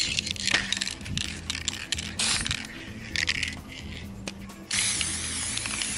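Aerosol can of metallic gold spray paint hissing in several short bursts, then a longer steady spray from about five seconds in, with light clicks and rattles from handling the can.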